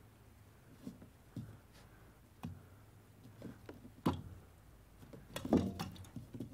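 Scuffs and knocks of a cat being held and pushed down over a dish on wooden floorboards: scattered light clicks, a sharp knock about four seconds in, and a louder cluster of knocks and scrapes near the end.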